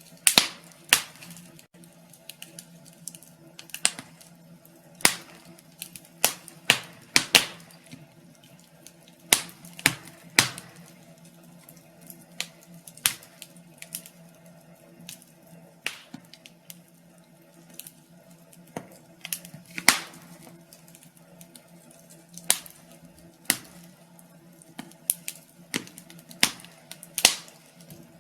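Wood fire crackling in a fireplace: irregular sharp pops and snaps, a louder one every second or two among many small crackles, over a faint steady low hum.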